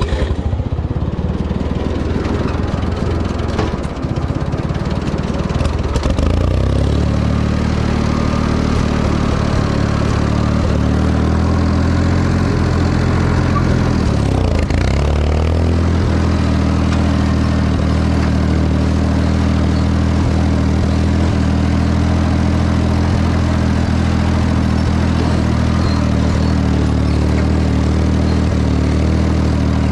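Ford 4000 tractor engine running a New Holland 273 square baler. The engine settles into a steady pull about six seconds in and holds it, with a brief dip in engine speed midway.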